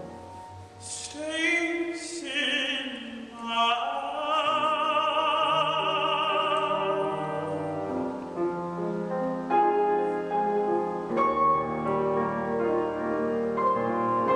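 Tenor singing an art song with vibrato and piano accompaniment, holding a long note. After about seven seconds the voice stops and the piano plays on alone in slow chords.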